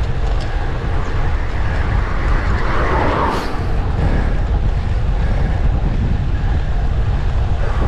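Wind buffeting the microphone of a camera carried in a moving vehicle: a loud, steady low rumble, with a brief louder gust about three seconds in.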